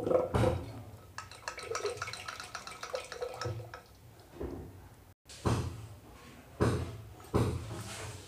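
Curd being churned by hand with a wooden churning stick (madhani) twirled between the palms in a steel pot: wet sloshing and splashing in irregular strokes, with three louder strokes in the last few seconds.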